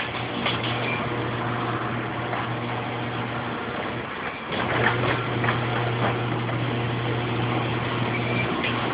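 Garage door opener motor running with a steady hum and a rattling door. It stops about four seconds in and starts again with a clatter about half a second later, then briefly pauses again near the end.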